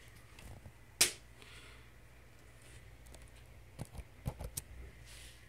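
Laptop keyboard keys being typed: one sharp click about a second in, then a cluster of lighter clicks and taps around four seconds in, over a faint low hum.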